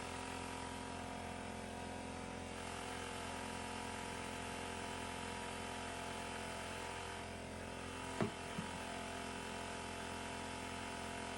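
Steady machine hum, like a motor running, with a sharp knock about eight seconds in and a smaller one just after.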